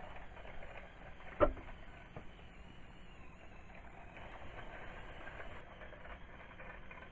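Small electric gear motors of a 3D-printed three-bearing swivel nozzle model running with a faint whir and light ticking as the nozzle segments rotate. One sharp click comes about a second and a half in.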